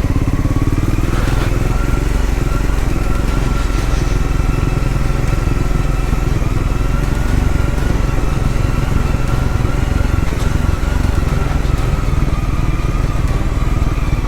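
Triumph Scrambler 400X's single-cylinder engine running steadily, with no revving up or down.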